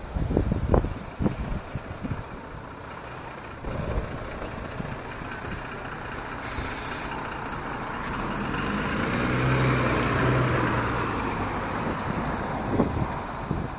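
City bus at a terminus: a short hiss of air released from the brakes about halfway through, then the bus engine running, growing louder and easing off again. Low buffets of wind on the microphone come in the first two seconds.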